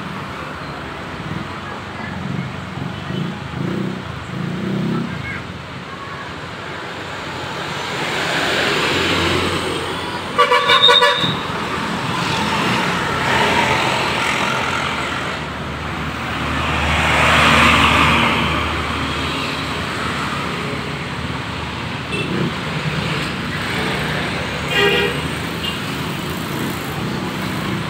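Road traffic passing, with two vehicles going by loudly. A short, pulsing horn blast sounds about ten seconds in, and a briefer one about 25 seconds in.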